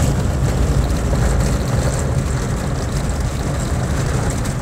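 Toyota Land Cruiser BJ73's 3B four-cylinder diesel engine running steadily under way, with tyres rolling on a gravel track.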